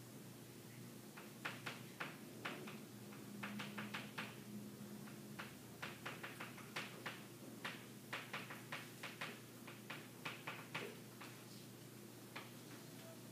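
Chalk tapping and stroking on a blackboard while a diagram is drawn: an irregular run of short, faint taps and scrapes, over a steady low room hum.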